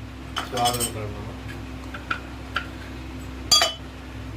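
A metal spoon clinking against kitchen vessels: a few light taps, then one sharp, ringing clink about three and a half seconds in.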